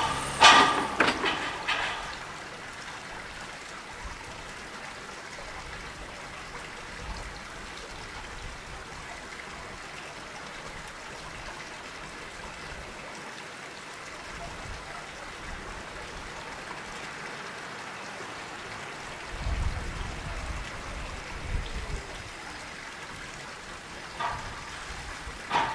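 Steady outdoor background hiss, with a burst of sharp clacks and knocks in the first two seconds and a low rumble for a couple of seconds about three-quarters of the way through.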